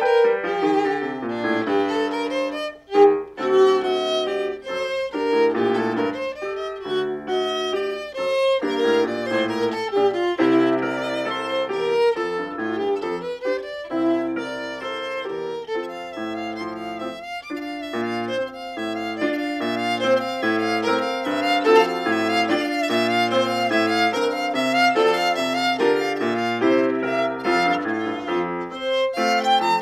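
Violin playing a classical piece with piano accompaniment, the violin line moving in quick runs of short notes over lower piano notes.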